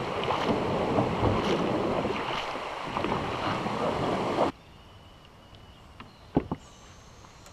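Creek water rushing and splashing around a kayak, a loud steady noise with scattered splashes. It cuts off suddenly about four and a half seconds in, leaving quiet with a faint thin high tone and a couple of small clicks.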